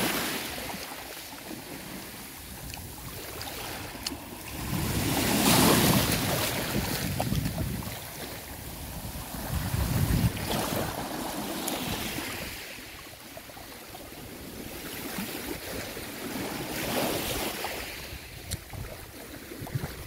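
Small waves washing up and drawing back over a gravelly shore in shallow water. The wash swells and fades every few seconds.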